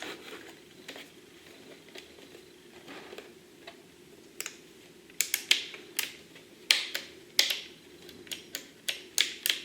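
Sharp plastic clicks from the controls of a FrSky Taranis X9 Lite RC transmitter being operated, faint at first, then louder and irregular, a couple per second, from about five seconds in.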